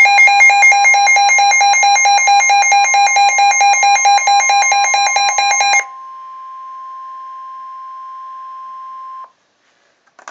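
Midland weather radio sounding its alert for a severe thunderstorm warning. For about six seconds it gives a loud, rapid pulsing beep on two alternating tones. Then it changes to the quieter steady single-pitch NOAA Weather Radio warning tone, which cuts off sharply, and a button click comes near the end.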